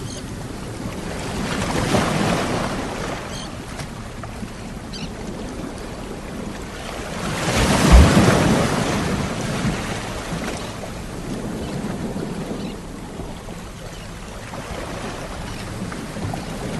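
Sea waves washing onto the shore, surging and falling back, with the biggest wave breaking about eight seconds in.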